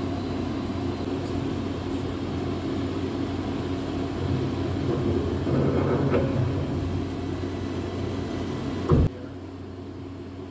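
RMT TGB14 CNC threading machine running, its tool spindles machining an iron companion flange: a steady machine hum with a faint high whine, growing louder for a couple of seconds midway. About nine seconds in comes a single thump, after which the whine stops and the hum is quieter.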